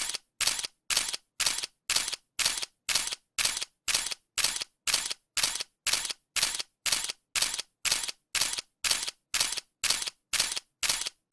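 Camera shutter firing over and over at a steady pace of about two shots a second, each shot a crisp two-part click.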